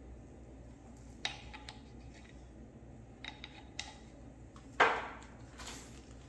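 Metal hand tools clinking: a few light clicks and taps, then one louder clank about five seconds in, as sockets are tried on a bolt to find its size.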